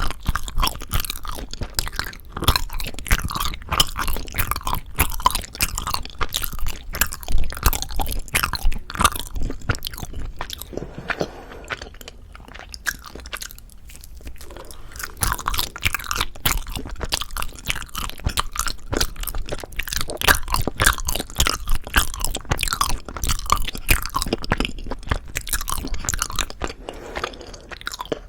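Close-miked chewing of soft rice cake (tteok): a dense, continuous run of mouth clicks that eases off for a few seconds around the middle before picking up again.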